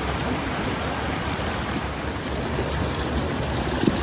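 River water flowing steadily downstream from a waterfall.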